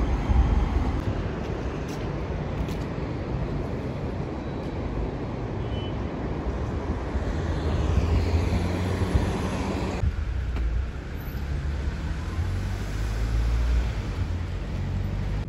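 City street traffic noise: a steady rumble of passing vehicles that changes abruptly about ten seconds in.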